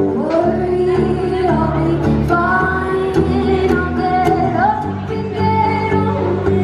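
Background pop music with a female voice singing over a steady acoustic backing.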